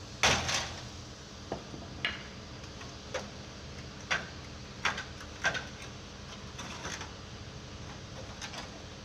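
Scattered clicks and knocks at uneven intervals, the loudest just after the start, over a steady low hum.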